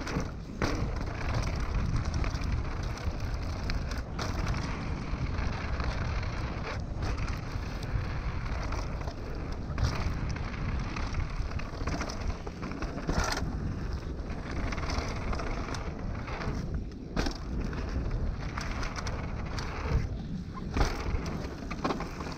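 YT Tues downhill mountain bike riding fast down a rough trail: continuous tyre and rolling noise with frequent knocks and rattles from the bike. Steady wind rush buffets the GoPro's microphone throughout.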